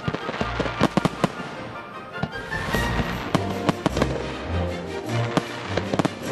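Fireworks display: aerial shells bursting and launching in quick succession, a rapid string of sharp bangs and crackles, the sharpest cluster about a second in, over music with steady bass notes.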